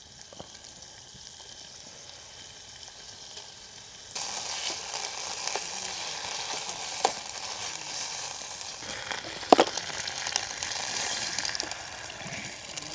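Sesame oil and ginger sizzling in a hot pan, the frying jumping much louder about four seconds in, with a couple of sharp knocks.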